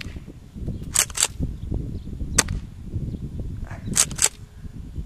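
Tokyo Marui M870 gas airsoft shotgun being worked and fired: a quick double clack of the pump being racked about a second in, a single sharp shot about halfway through, then another double clack of the pump near the end. Wind rumbles on the microphone underneath.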